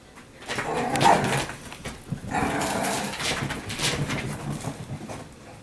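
Italian greyhound play-growling in two rough stretches, the second starting about two seconds in and lasting a few seconds.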